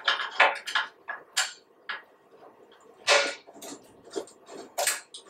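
Black steel hex bolts with spring washers clinking and rattling against a metal trolley frame as they are pushed into the bolt holes of the gas bottle shelf: a string of short metallic clicks and clanks, the loudest about three seconds in and again near the end.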